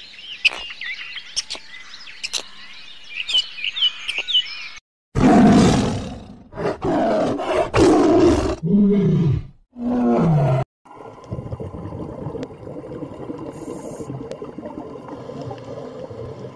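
Birds chirping with a few sharp clicks, then a tiger's loud roars and growls about five seconds in, the last two calls falling in pitch. After that comes a steady low rushing hum.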